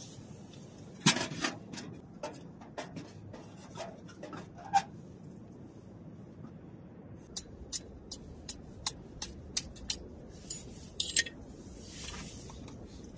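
Firewood sticks knocking and clinking against a small steel tent stove as kindling is handled and fed into it: scattered sharp knocks, the loudest about a second in, then a run of light clicks about three a second in the second half.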